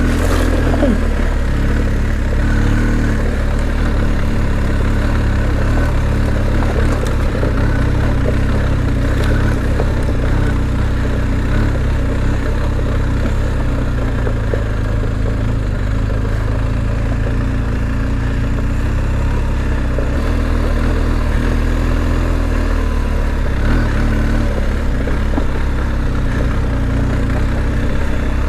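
BMW R 1250 GS's boxer-twin engine running steadily at low speed on a gravel track, heard from on the bike as a continuous low rumble.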